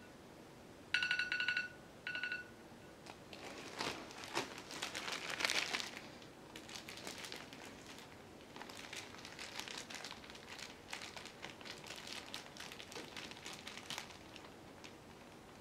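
A smartphone gives electronic beeps about a second in, a longer one then a short one, as it is tapped. Then a plastic bag crinkles and rustles for several seconds as hands handle it and its hooks, loudest around five seconds in.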